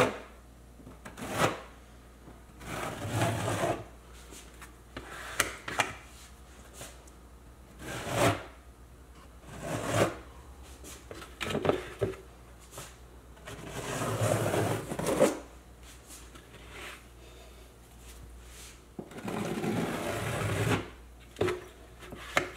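Small plastic notched trowel scraping through tile mastic on a wall, combing off the excess adhesive: a series of short scraping strokes every second or two, with a few longer drawn-out ones.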